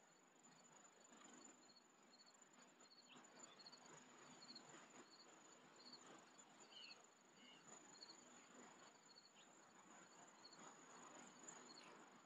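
Faint crickets and other insects: a steady high trill, with a cricket chirping about twice a second.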